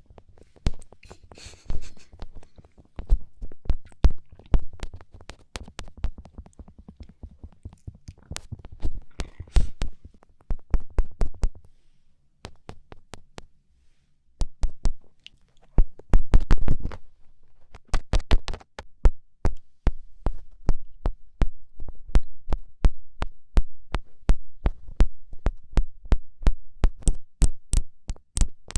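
A run of quick, irregular fingertip taps and pokes, sharp clicks with soft low thumps under them, often several a second, with a short pause in the middle.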